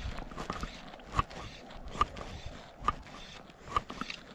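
A short knock repeating evenly, a little under once a second, five times, over a faint rustle.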